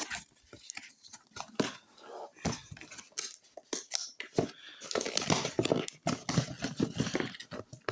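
Product packaging being handled and opened by hand: irregular scraping, tearing and crinkling with short clicks and taps, busier in the second half.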